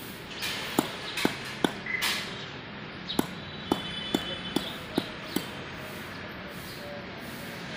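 Large curved chopping knife cutting through fish onto a wooden block: about ten sharp chops, roughly two a second, stopping a little past halfway.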